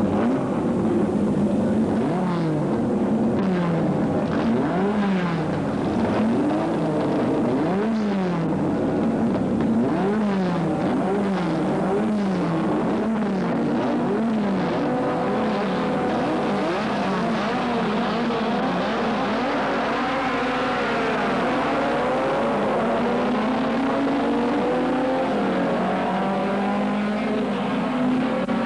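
Racing car engines on a circuit, revving hard with the pitch climbing and dropping over and over as they pass and change gear. In the second half several cars are heard at once, their engine notes overlapping.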